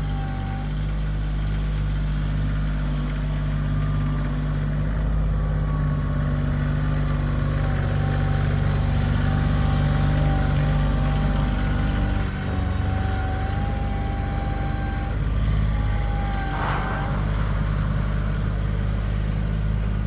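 Bobcat CT2025 compact tractor's diesel engine running steadily while working, with a thin high whine that comes in through the middle.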